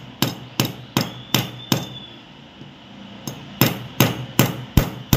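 Small hammer tapping the ends of steel-wire fishing-rod guides on a piece of iron: light metal-on-metal taps, about three a second, with a pause of about a second in the middle. The taps are flattening the guide tips so the binding thread will hold them on the rod.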